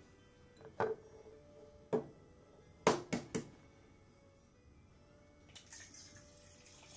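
A few sharp kitchen clicks and knocks, three of them in quick succession about three seconds in, as a wok and egg are handled. Near the end an egg drops into plenty of hot oil in a wok and starts to sizzle, the hiss growing.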